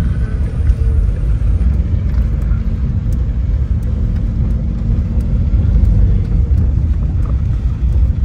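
Small car driving along a dirt track, heard from inside the cabin: a steady low rumble of engine and tyres on the rough ground.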